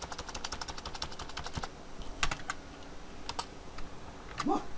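Computer keyboard typing: a quick run of keystrokes in the first second and a half, then a few separate key presses. A short hum of voice comes near the end.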